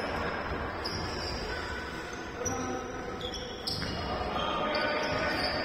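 Indoor korfball game sounds: a ball bouncing on the hall floor, short high squeaks of shoes on the court, and players' voices in the background.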